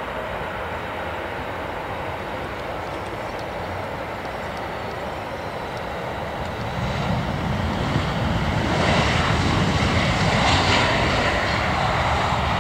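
Airbus A320 jet engines on a landing approach: a steady rushing engine noise that grows louder about halfway through and is strongest near the end as the airliner passes close by.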